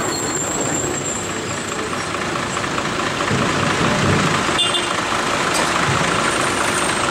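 Heavy-vehicle diesel engines running steadily as a bus drives slowly through the hairpin bend past a stopped truck, with a brief click about halfway through.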